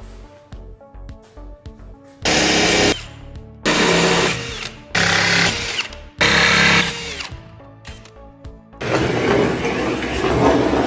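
Power tool working on porcelain tile, switched on in four short bursts of under a second each, then running longer and rougher near the end, over background music.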